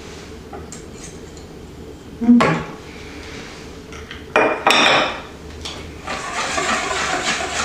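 A knock about two seconds in, then a china cup clinks down onto a small glass dish a couple of times. From about six seconds in a spoon stirs and scrapes steadily against a ceramic mixing bowl, working oil into a yeast dough batter.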